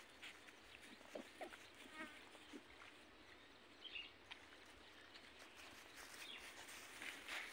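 Near silence: faint outdoor ambience with a few soft scattered clicks and rustles, and a faint short chirp about two seconds in.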